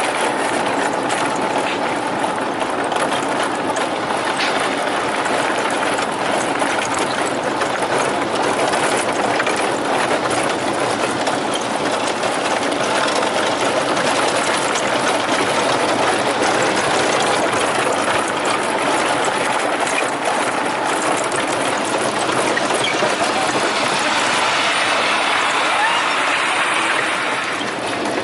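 A steady, loud rattling noise, like a vehicle on the move, that eases off near the end.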